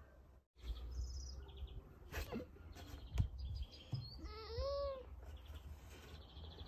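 Birds chirping at intervals, with one longer rising-and-falling call about four and a half seconds in, over a steady low rumble. A sharp tap sounds about three seconds in.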